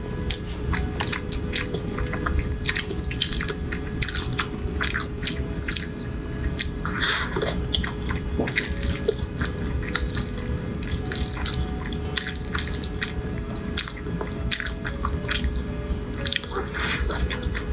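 Close-miked chewing and wet mouth clicks of a person eating soft, saucy dumplings in chili oil, with many sharp clicks throughout. Quiet background music runs underneath.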